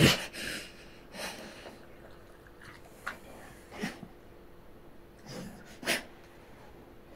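A dog snorting and huffing in about seven short noisy bursts while it writhes and rolls on its back on a carpet, the loudest right at the start. It is a put-on show of hunger convulsions, as the owner reads it.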